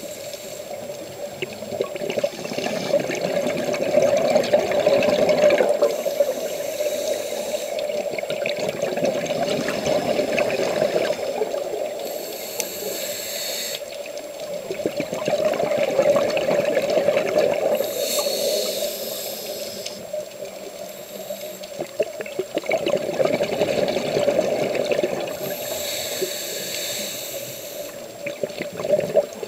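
Scuba regulator breathing, muffled through an underwater camera housing: a short hiss of inhaled air about every six seconds, each followed by a longer crackling rumble of exhaled bubbles.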